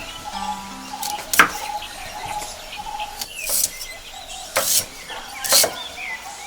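Birds chirping over faint background music with steady held notes, cut through by sharp knocks, one early and then about one a second in the second half.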